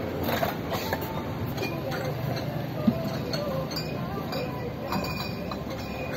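Irregular clinks and knocks of dishes and metal cooking utensils, with one sharper knock about three seconds in, over faint background chatter.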